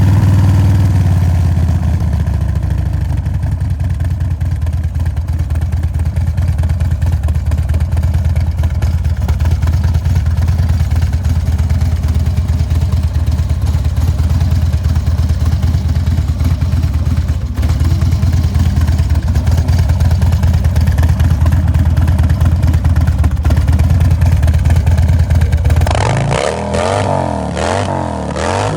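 Harley-Davidson Road Glide Special's V-twin engine idling with a steady, low, pulsing rumble. Near the end the idle gives way to rising and falling engine pitch.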